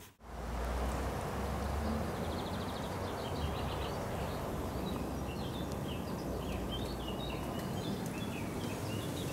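Small birds chirping and twittering over a steady background of outdoor noise with a low rumble; the chirps start about two seconds in.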